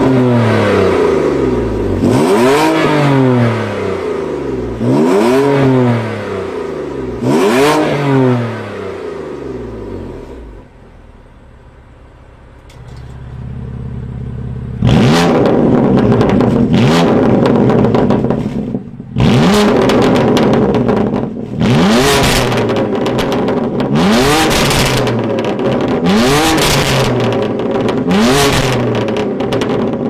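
BMW M3 CS twin-turbo inline-six with a valvetronic catback exhaust, stationary and free-revving. It gives four separate rev blips, settles to a quieter idle for a few seconds, then, with the exhaust valves open, gives a quicker run of louder, sharper blips with crackling as the revs drop.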